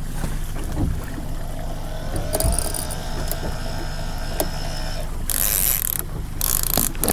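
Cannon electric downrigger motor winding in its cable: a whine rises about two seconds in, then holds steady for a few seconds as the trolling weight is raised from 70 to 60 feet. Under it is the steady low hum of the boat's outboard motor, and near the end come a few spells of hissing noise.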